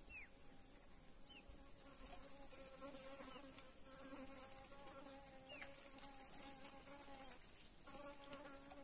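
Faint steady buzzing of a flying insect, its hum holding one pitch, breaking off for a moment near the end and then starting again. A thin, steady high-pitched whine and a few short falling chirps sit behind it.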